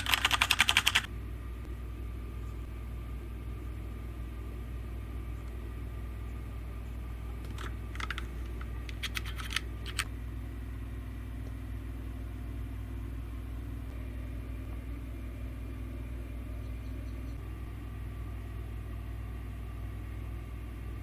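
Fast typing on a Corsair K65 mechanical keyboard with Cherry MX Red linear switches stops about a second in. A steady low hum follows, broken by a brief cluster of a few sharp clicks around the middle.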